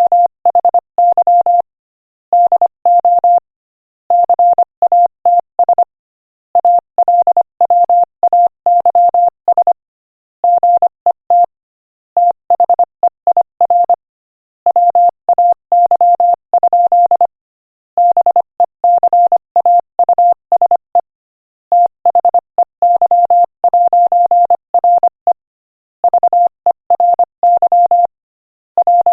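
Morse code sent at 25 words per minute: a single steady beep tone keyed on and off in quick dots and dashes, grouped into words with short silences between them.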